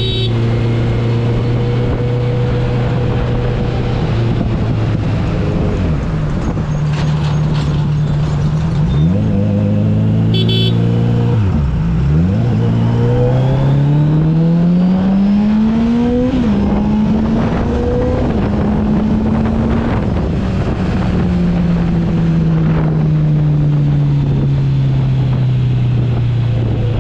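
Kawasaki Z900's inline-four engine running as the motorcycle is ridden, its pitch dipping and recovering several times, climbing steadily for a few seconds past the middle, then falling slowly near the end as it eases off. A short beep sounds about ten seconds in.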